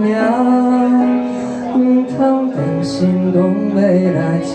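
A man singing a slow ballad live into a microphone, over held chords played on a Korg electronic keyboard.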